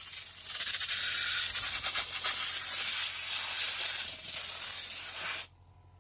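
Compressed-air blow gun blasting muck out of the fins of a plastic engine cooling fan: a loud hiss with a short dip right at the start, cut off suddenly about five and a half seconds in.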